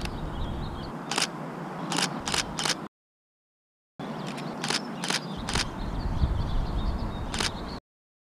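Nikon D3400 DSLR shutter firing repeatedly: a single click, then a quick run of three or four, and after a short gap of dead silence a few more spaced-out clicks.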